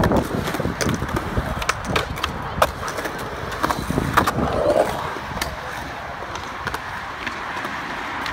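Skateboard wheels rolling on a concrete skatepark surface, a steady rumble broken by many scattered sharp clicks and knocks.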